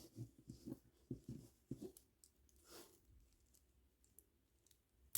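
Faint handling noises of a beaded kandi cuff while its string is knotted: plastic beads clicking lightly and cord rustling, mostly in the first two seconds, with one sharper click near the end.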